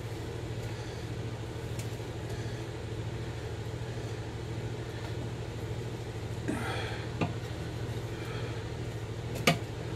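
A steady low mechanical hum from a fan or kitchen appliance, with the faint sounds of a chef's knife scoring raw pork skin: a short scrape about two-thirds of the way through and a couple of sharp clicks near the end.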